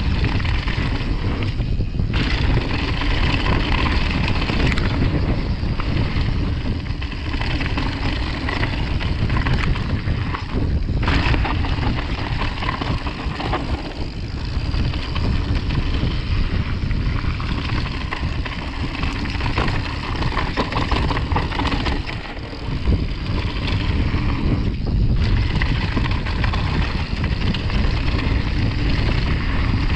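Loud, steady wind noise on the microphone over mountain-bike tyres rolling fast on a packed dirt and gravel trail.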